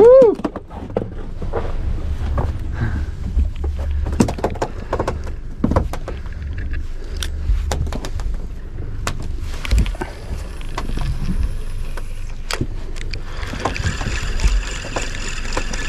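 Low rumble of a boat at sea, with many scattered knocks and clicks and a short shout right at the start. About 13 seconds in, a steady high buzz of several tones begins.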